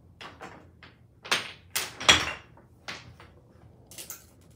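A series of sharp, irregular knocks and clacks, loudest about one and two seconds in: wooden toy blocks and a plastic toy dragon knocking on a tiled floor as a child handles them.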